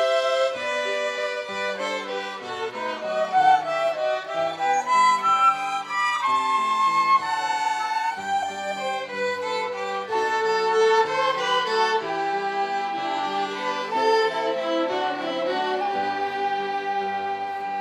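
Violin ensemble playing a melody in several parts.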